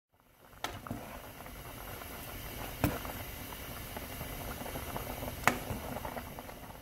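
Pan of chard and soybean-paste soup at a hard rolling boil, a steady dense bubbling, with three sharp clicks of a metal ladle against the pan spread through it.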